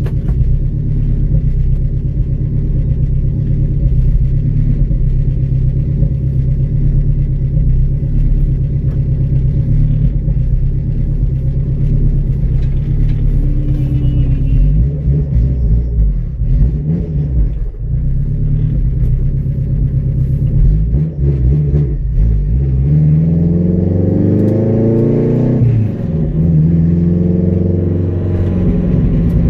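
A 500-horsepower Honda Integra engine heard from inside the cabin. It runs with a steady low drone while the car cruises. About three-quarters of the way in, it revs up in a rising pull lasting about three seconds, drops sharply at a gear change, then runs on at a steady higher note.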